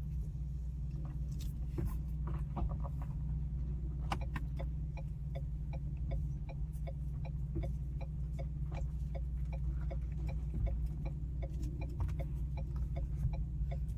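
Car cabin with a steady low engine hum. From about four seconds in, a regular ticking runs at roughly two to three clicks a second.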